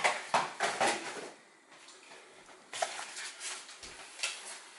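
Blu-ray cases and cardboard packaging being handled and set down on a table: a quick run of clicks and knocks, a brief lull, then more scattered taps and clicks.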